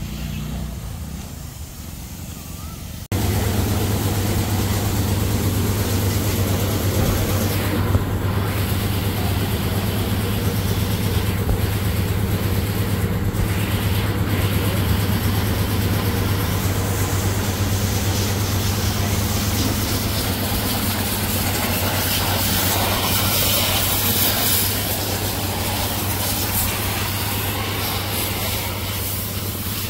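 Pressure washer at a vehicle wash: a steady motor hum with the hiss of the water jet, starting abruptly about three seconds in.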